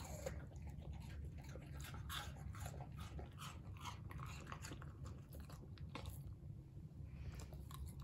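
Australian Shepherd crunching and chewing a piece of apple: a quick run of crisp crunches that thins out after about six seconds.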